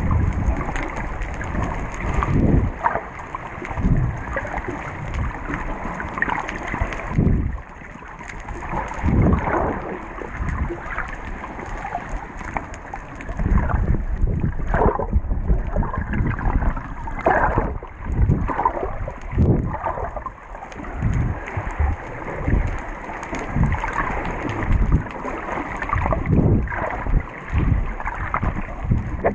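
Muffled underwater sound through a GoPro's waterproof housing: a continuous water rush with irregular low thumps and gurgles.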